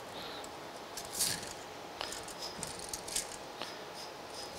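Scattered light clicks and rattles from hands handling a length of square steel tubing while measuring it, with one slightly louder knock about a second in. The chop saw is not running.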